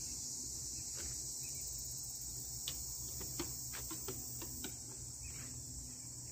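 Steady high-pitched chorus of insects, crickets by their sound, with a few faint clicks near the middle.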